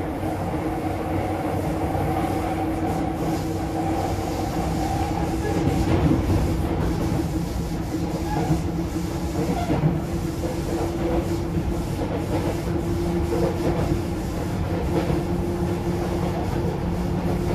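Sotetsu 8000 series electric train with Hitachi IGBT inverter drive running along the line: a steady rumble of wheels on rail with a constant whine from the traction motors and inverter, and occasional faint knocks.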